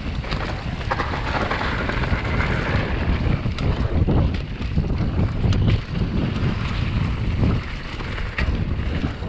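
Mountain bike descending a gravel dirt trail: wind buffeting the chest-mounted action camera's microphone, with the tyres rolling over gravel and scattered short clicks and rattles from the bike.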